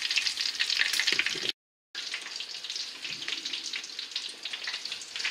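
Hot seed oil sizzling and crackling in a small stainless steel pan as breaded artichoke pieces fry. The sound cuts out for a moment about a second and a half in, then carries on a little quieter.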